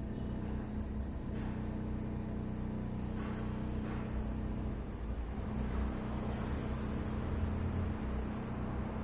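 Steady low mechanical rumble with a constant hum, with no sudden events.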